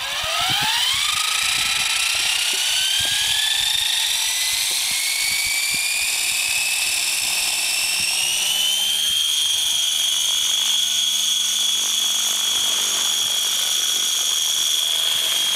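Gaui Hurricane 550 electric RC helicopter's 1100 kV motor and rotor head spooling up: a whine that climbs quickly in pitch in the first second, keeps rising slowly, then holds a steady pitch from about nine seconds in as the head reaches speed.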